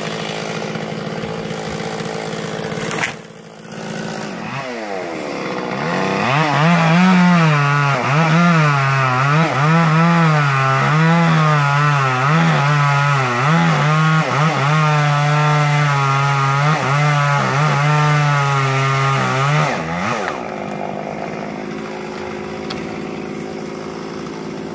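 Chainsaw cutting a tree limb: it runs steadily, dips briefly, then revs up into the cut, its pitch rising and falling about once a second for some fifteen seconds before it stops abruptly, leaving a quieter steady sound.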